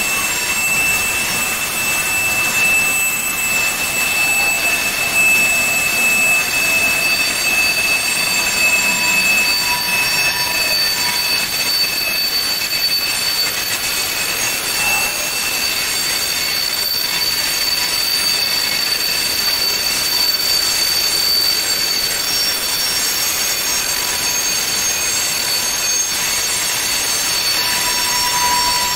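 Loaded tank cars of a freight train rolling through a tight curve, their wheel flanges squealing against the rail over a steady rumble of wheels. The squeal holds several high steady pitches: one fades about halfway through while a higher one carries on, and a lower tone swells near the end.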